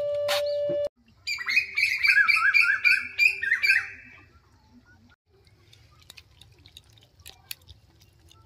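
A bird calling: a quick run of repeated chirpy notes lasting about three seconds, starting just after a steady held tone cuts off about a second in. After it, only faint scattered clicks and taps.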